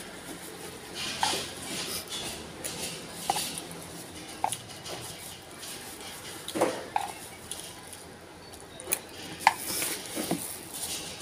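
A spoon clinking and scraping against a bowl wrapped in a thin plastic bag, in irregular strokes every second or so, with the plastic crinkling between them.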